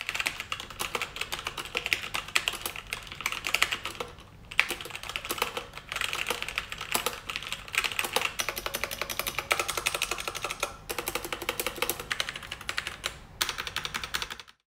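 Fast typing on a Krom Kernel TKL mechanical keyboard with Gateron Red linear switches and ABS keycaps: a rapid, continuous stream of key clacks. There is a short pause about four seconds in, and the typing stops just before the end.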